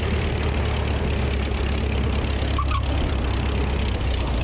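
Van's RV-6A's piston engine and propeller running loud and steady as the plane rolls along the pavement, with wind rushing over the under-wing camera.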